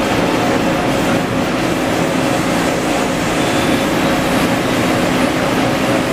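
Steady hum of running industrial machinery: an even noise with a few constant tones and no starts, stops or changes.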